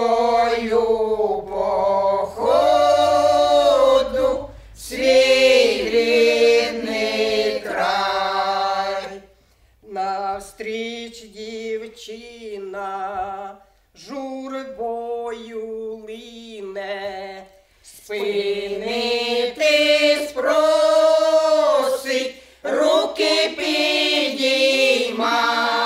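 Women's folk ensemble singing a Ukrainian folk song a cappella, several voices together, line by line with short pauses between phrases.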